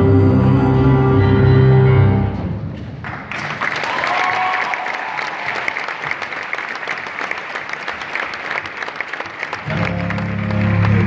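Stage music with low sustained notes stops about two seconds in. A second later an audience breaks into applause, with a brief cheer early in the clapping, and the applause goes on steadily. Low sustained music starts again under it near the end.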